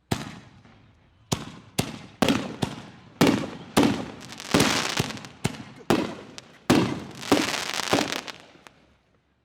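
5-inch canister firework shells (Chroma XL mortar shells) going off in quick succession: more than a dozen sharp booms, roughly one every half second, each followed by a short fading echo, stopping shortly before the end.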